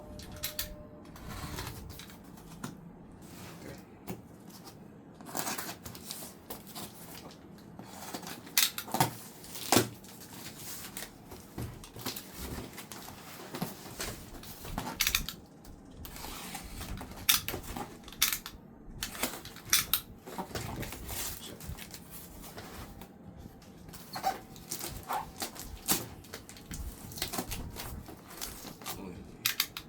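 Parcel packaging being opened and handled: irregular rustling and crinkling of wrapping, with many short sharp clicks and snaps.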